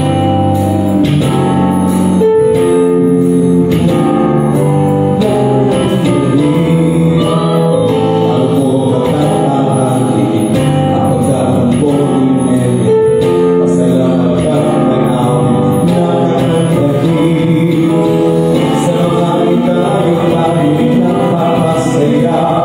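A man singing into a microphone over amplified backing music, continuous and loud, with long held notes.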